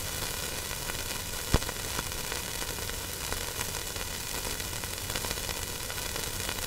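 Steady static hiss with scattered faint crackles and one sharp pop about a second and a half in.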